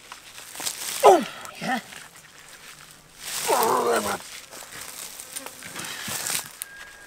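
A man grunting and groaning with effort as he strains to heave a large rock: a short falling grunt about a second in, another shortly after, and a longer strained groan about three seconds in, with rough scraping sounds between them.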